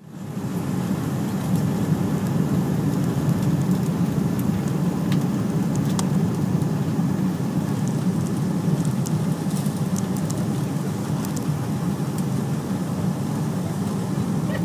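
Steady roar of a jet airliner cabin in flight, the engine and airflow noise heard from a window seat, fading in at the start. A few faint clicks sound over it.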